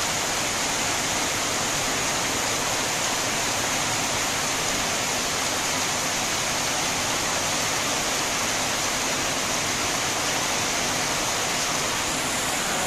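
Heavy rain pouring down in a steady, dense hiss, with no let-up.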